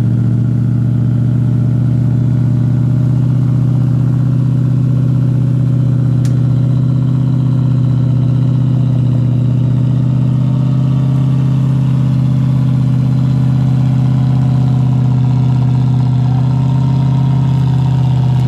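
Land Rover Discovery's V8 engine with a tuned camshaft, running loud at steady, held revs under load as the vehicle crawls up a steep slope.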